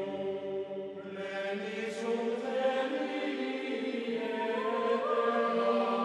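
Background music of sustained, choir-like chanting voices holding long notes. It swells about a second in, and a higher held note joins around four to five seconds in.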